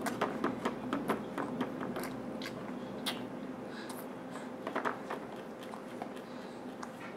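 A baby eating finger food: irregular small clicks and mouth smacks, about two a second, over a faint steady hum.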